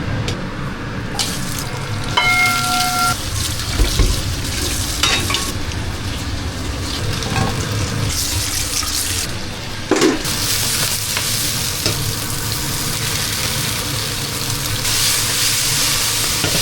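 Beef and aromatics (scallion, ginger, star anise, cinnamon, dried chili) sizzling as they are stir-fried in a pot, browning before water is added. A spatula clinks and scrapes against the pot now and then.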